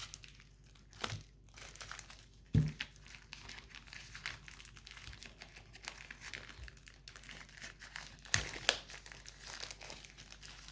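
Packaging crinkling and rustling as it is handled and pulled off a new Bluetooth speaker, with a few sharp knocks; the loudest is about two and a half seconds in, and another comes near the end.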